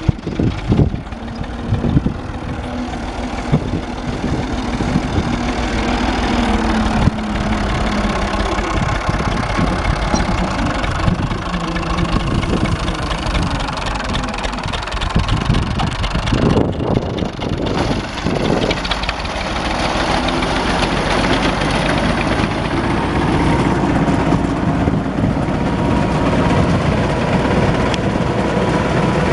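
Ursus 2812 tractor's diesel engine running steadily while it works a wheat reaper, with frequent knocks and rattles over the engine note. The sound dips briefly a little past halfway, then grows louder toward the end.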